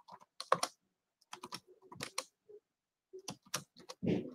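Typing on a computer keyboard: irregular key clicks in small clusters with short pauses between them.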